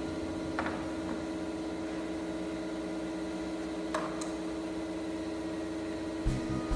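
Steady machine hum, like a small motor running, with two sharp clicks or taps. A rhythmic music beat starts near the end.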